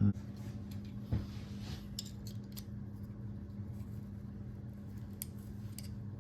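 Light metallic clicks and taps of hand tools working a small riveted metal latch part apart, with a knock at the start and another about a second in, over a steady low hum.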